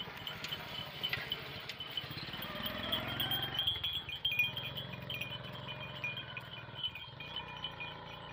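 A herd of goats on the move, with a high, steady tinkling chime running through and one long bleat starting about two seconds in.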